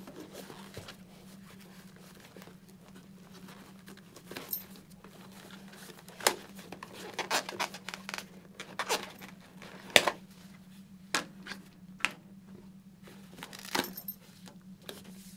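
Cheek pad being unsnapped and pulled out of an HJC F70 full-face motorcycle helmet: scattered clicks from the pad's snaps and plastic tabs, with rustling of the padding against the shell.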